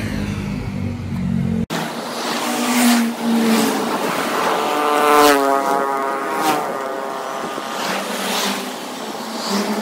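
Road traffic passing close by: cars and a van go by one after another, each swelling and fading, with one engine's note falling in pitch as it passes about five seconds in.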